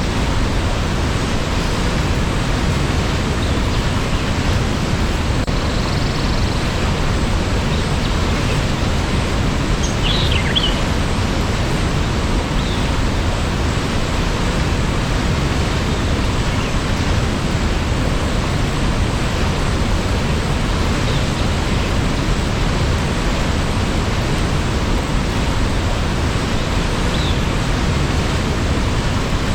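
Waterfall rushing with a steady, even roar of water, plus a few faint short high chirps about a third of the way in and again near the end.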